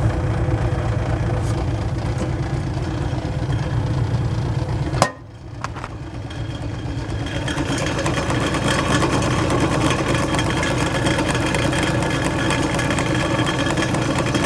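The GE electric motor of a Norge Rollator refrigerator running steadily, belt-driving the compressor. A sharp click about five seconds in, then the sound drops away suddenly and builds back up over a couple of seconds. The owner puts much of its noise down to the missing suspension springs.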